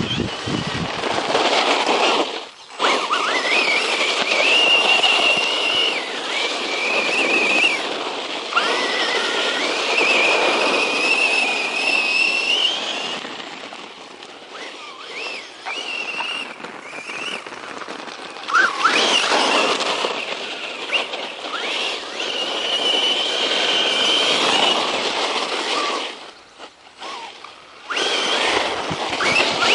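Brushless motor of a 1/10-scale RC truck whining as it runs at speed, the high whine gliding up and holding, over the noise of the tyres churning over dirt. It lets off briefly about two and a half seconds in and again a couple of seconds before the end.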